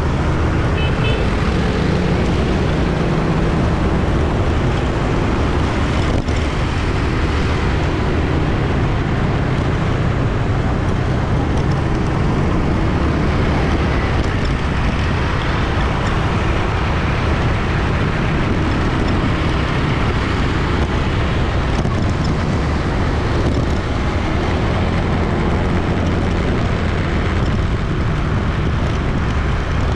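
Dense city street traffic: a continuous, steady drone of many engines and tyre noise with no breaks.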